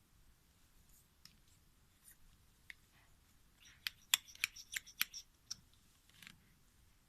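A quick run of sharp, crisp clicks and snaps, densest in a tight cluster of about eight to ten a little before the middle, with a few softer scattered clicks before and after.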